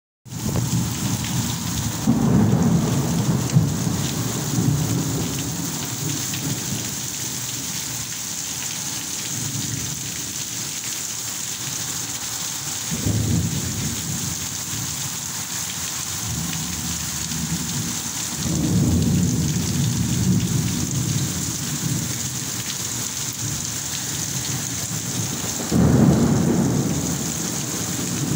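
Heavy rain falling with a steady hiss, broken by four low rumbles of thunder that swell and fade. The loudest comes near the end.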